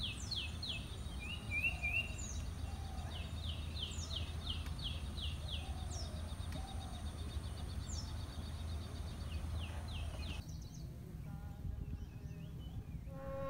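A bird calling in quick series of short, high, downward-sliding notes, repeated in bouts, over a steady low hum. The calls stop about ten seconds in.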